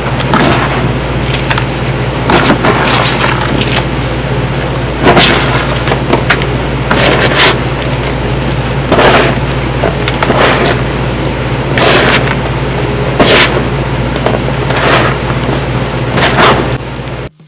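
A hand squeezing and crumbling clumps of dry cornstarch, giving squeaky crunches every second or so. A steady low hum runs underneath.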